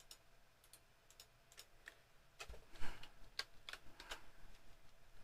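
Faint, scattered clicks of a computer keyboard and mouse, a dozen or so single keystrokes, sparse at first and busier in the second half.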